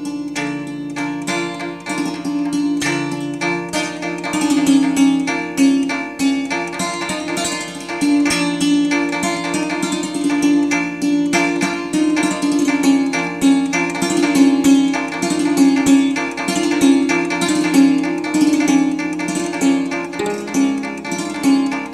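Santoor played with a pair of light hammers: rapid, dense strikes on its strings, with the lower notes ringing on underneath.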